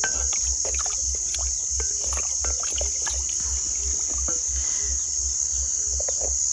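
Crickets trilling in a steady, high continuous band, over scattered clicks and knocks of a wooden spoon stirring stew in an aluminium pot and the liquid simmering.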